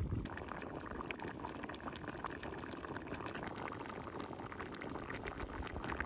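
Beef and potato stew boiling in an uncovered cauldron: a steady bubbling with many small irregular pops.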